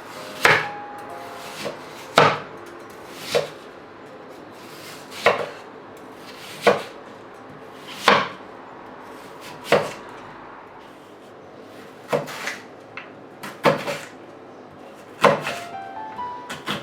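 Knife chopping on a wooden cutting board: about ten separate sharp strokes, roughly one every second and a half, over soft background music.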